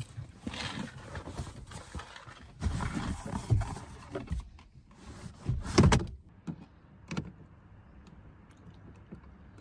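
Irregular rustling and knocks, with a heavier thump about six seconds in and two light clicks after it, then only a faint hiss.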